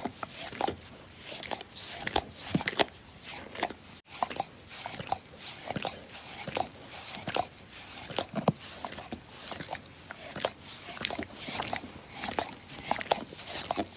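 Dog licking with its tongue: a close, irregular run of wet smacks and clicks, several a second.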